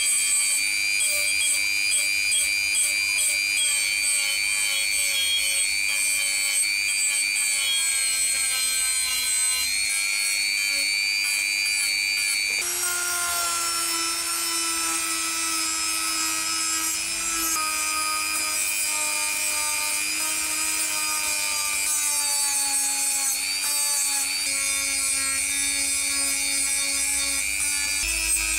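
Small rotary tool spinning a sanding drum against a metal part: a steady motor whine over a gritty rasp of abrasive on metal. The whine's pitch jumps up about halfway through, then sags slightly in steps as the drum bears on the work.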